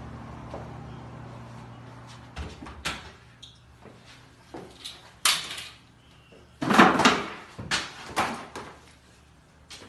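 A series of irregular short knocks and scuffling bursts, the loudest and longest about two-thirds of the way in, after a low hum that fades about two seconds in.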